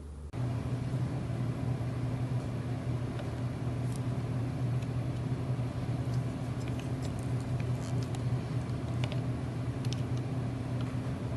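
A steady low mechanical hum, as of a mains-powered machine running, with faint scattered light ticks over it. It cuts in abruptly just after the start.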